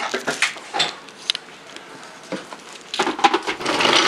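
Knocks and clatter of a plastic blender jar being handled and set on its base. A little before the end the countertop blender switches on and runs steadily, churning a thick mixture.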